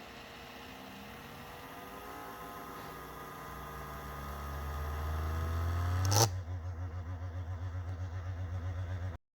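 Acer Nitro 5 laptop cooling fan running with the abnormal noise it developed after a year of use. It grows steadily louder with shifting tones. About six seconds in there is a sharp click, after which the sound pulses about five times a second until it cuts off suddenly.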